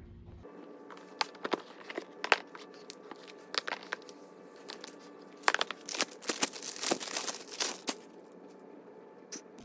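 Plastic protective wrap on a new iPad Pro crinkling and crackling as the tablet is handled out of its box, in sharp separate crackles at first and then a dense run of crinkling in the second half. A faint steady hum runs underneath.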